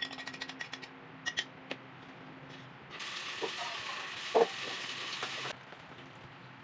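Food sizzling in hot oil in a pan, starting suddenly about three seconds in and cutting off abruptly about two and a half seconds later, with a sharp knock of a utensil against the pan in the middle. A quick run of small clicks and a few ticks come before it.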